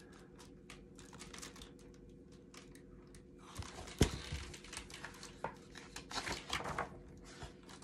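Pages of a large picture book being turned by hand: paper rustling and flapping, with a sharp slap about four seconds in.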